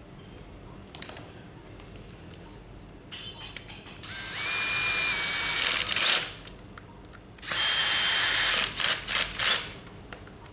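Cordless drill-driver turning screws in the speaker's plastic back housing: two runs of about two seconds each with a steady motor whine, then a few short trigger bursts as a screw is snugged down.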